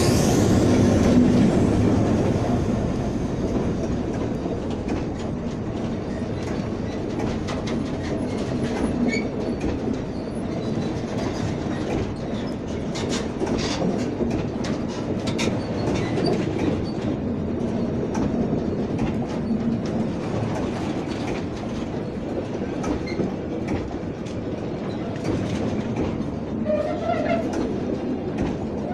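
Loaded freight wagons of a slow freight train rolling past close by, their wheels rumbling and clicking over the rail joints. The sound is loudest in the first couple of seconds, then settles into an even rumble.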